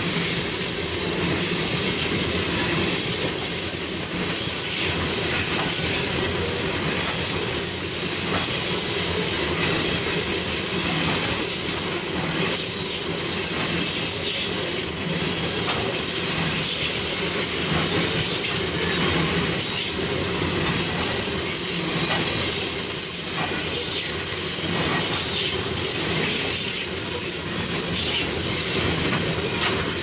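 Freight train tank cars rolling past on steel rails: a steady hiss and rumble of wheels on track, with scattered clicks and brief high wheel squeals now and then.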